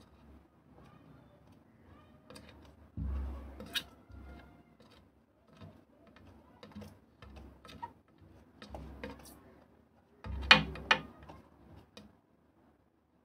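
A plastic scoop scraping and pushing dry soil in a glass aquarium, with scattered clicks and taps. A few sharp knocks with dull thumps a little past ten seconds in are the loudest.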